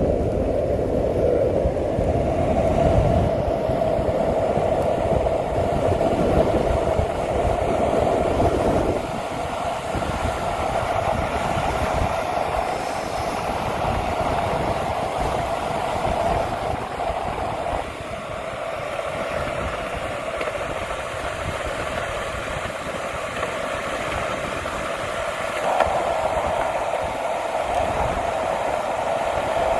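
Steady rumble of a moving vehicle with uneven low buffeting from a strong crosswind, heavier for the first nine seconds or so.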